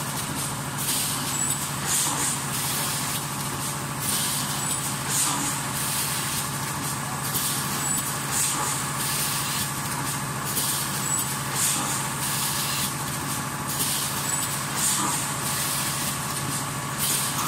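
Automatic leno bag cutting and sewing machine running: a steady machine hum with a short hiss of air about once a second as it works through its cycle.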